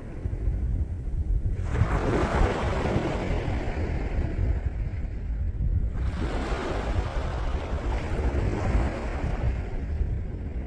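Sea waves washing onto the beach, two swells of surf about four seconds apart, each rising and then fading away, over a steady low rumble of wind on the microphone.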